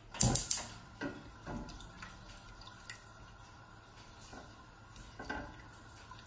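Wooden spoon stirring a thin sauce in a large stainless steel pot: the liquid sloshes, loudest just after the start, followed by several softer strokes and one sharp click about three seconds in.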